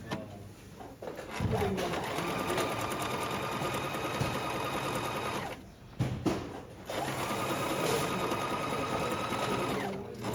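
DT 520 domestic electric sewing machine running twice at speed. Each run speeds up with a rising whine, stitches steadily for a few seconds, then slows to a stop. A couple of clicks fall in the short pause between the runs.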